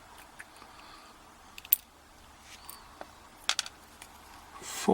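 A few small sharp metallic clicks and taps as the pins of an Asec euro cylinder lock are handled during disassembly, the loudest a single click a little under two seconds in.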